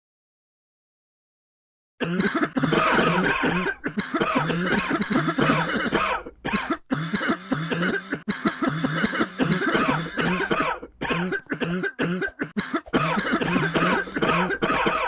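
A person coughing over and over, starting about two seconds in, with only brief breaks between the coughs.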